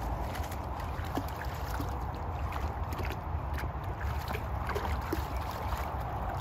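Wind buffeting the microphone outdoors, a steady low rumble, with a few faint scattered clicks over it.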